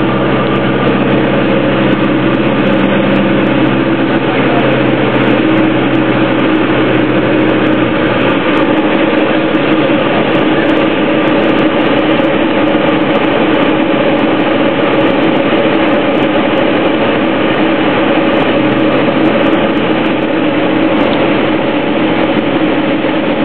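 Diamond DA20 Eclipse's four-cylinder piston engine and propeller droning steadily, heard from inside the cockpit on approach to a runway. Its lower tones shift about four seconds in and again about eight seconds in.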